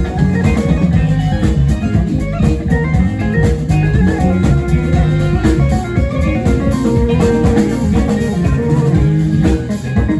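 Live rock band playing an instrumental passage: electric guitars over bass, keyboards and drum kit.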